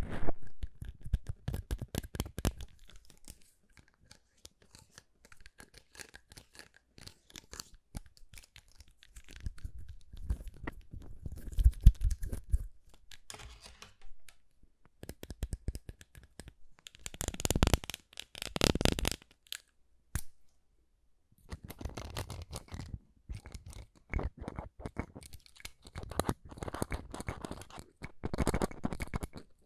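Clear plastic syringes handled right at the microphone, their plungers worked and the barrels moved over the mic. It comes as irregular runs of clicks and scratchy rubbing with short pauses.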